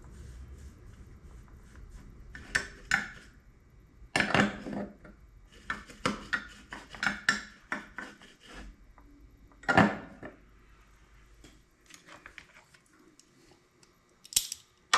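Scattered clinks and clatter of small metal tools and parts being handled and set down on a workbench, about a dozen separate knocks, the loudest a little past four seconds and near ten seconds.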